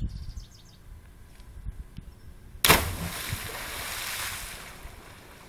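A person jumping off a rock cliff hits the lake about two and a half seconds in with one sharp, loud splash. The sound of spray falling back onto the water trails off over the next two seconds.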